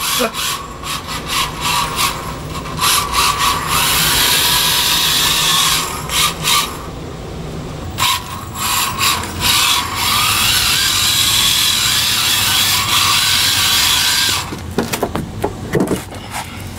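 Mini RC drift car running in stretches on a concrete floor: the whir of its small brushed motor and drivetrain, with the hard tyres scrubbing and sliding on the concrete. The running breaks off briefly partway through, and a few knocks come near the end.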